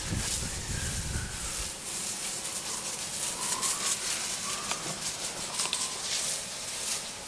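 Soft-wash spray gun hissing steadily as cleaning solution is sprayed onto clay roof tiles, with a low rumble over the first second or two.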